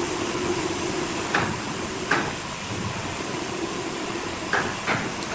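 Sawmill machinery running with a steady hissing noise and a faint hum, with four sharp knocks of wood or metal.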